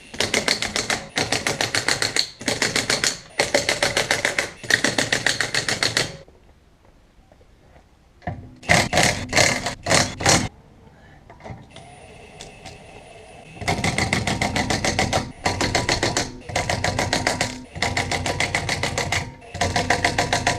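Impact wrench hammering wheel bolts, in repeated bursts of about a second each: a run of five, a short cluster a few seconds later, then another run of five.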